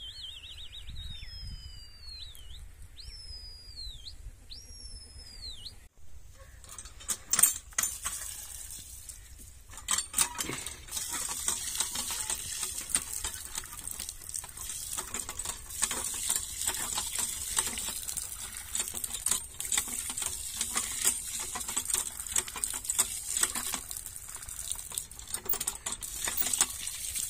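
Small birds chirping with repeated falling calls for about six seconds. Then, after a break, a steady high hiss filled with many sharp crackles and clicks.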